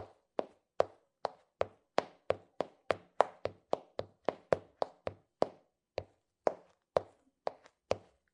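A long, even run of short, sharp knocks, about two to three a second, each dying away quickly.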